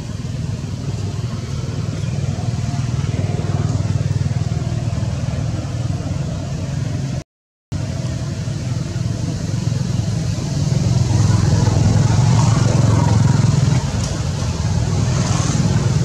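Steady low engine rumble, as of a motor vehicle running, louder from about eleven to fourteen seconds in and briefly cut off about seven seconds in.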